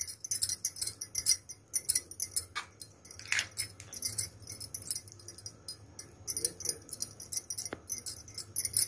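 Metal spoon scraping and clicking against an aluminium baking tin while spreading thick white sauce over a bread-lasagna layer: a continuous run of quick, high, scratchy ticks with a few louder scrapes.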